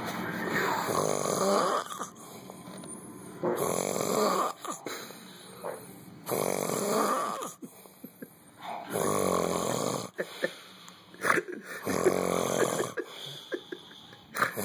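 A person snoring heavily: about six loud, rasping snores, one every two to three seconds, with quieter breaths between them.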